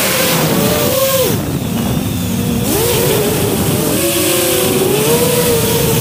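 A 5-inch FPV freestyle quadcopter's motors and propellers whine over a rushing hiss, the pitch sliding up and down with the throttle. About a second and a half in, the pitch drops low and the hiss thins for about a second, then both climb again.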